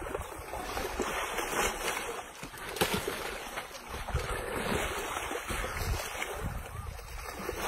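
Wind buffeting the microphone, with wet mud sloshing and splashing in irregular bursts as Asian elephant calves roll about in a mud wallow.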